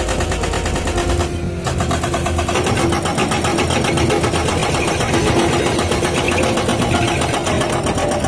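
Excavator-mounted hydraulic rock breaker hammering rock in rapid, even blows, with a brief pause about a second and a half in, over the excavator's diesel engine running under load.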